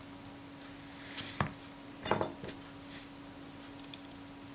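Small metal tool clicking and clinking against the metal works of a Synchro-Compur leaf shutter during disassembly: one sharp click about a second and a half in, a louder cluster of clinks just after two seconds, then a few faint ticks.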